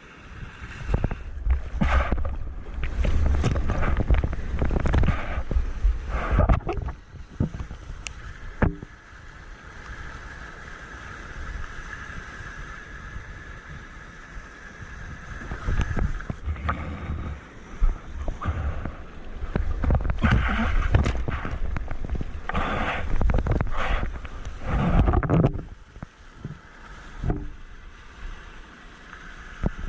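Water splashing and wind buffeting a surfer's camera microphone in surf, in loud, uneven surges.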